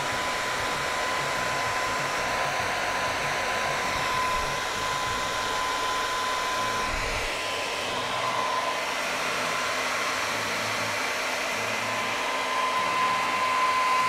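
Philips BHD006 1600-watt hair dryer running with its nozzle removed: a steady rush of air with a steady high whine from the fan motor, slightly louder near the end.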